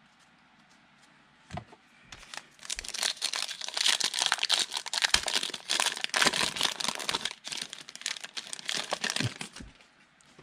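Trading-card pack wrapper being torn open and crinkled in the hands: a dense crackling that starts about two seconds in, peaks in the middle and dies away shortly before the end, after a single light tap.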